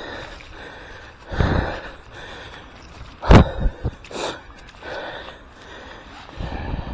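A mountain-bike rider breathing hard in several bursts while riding, with one sharp knock from the bike a little past the middle.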